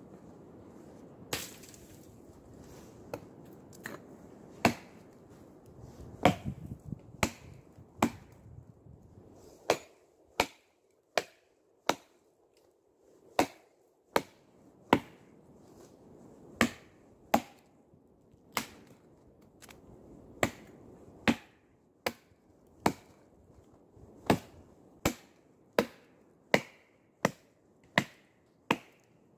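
Small axe chopping into the base of a birch trunk, a long series of sharp, separate chops, irregular at first and then coming about once a second.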